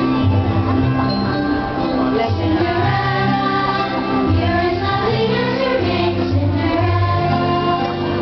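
Show music with a choir singing over held orchestral chords and a steady bass line.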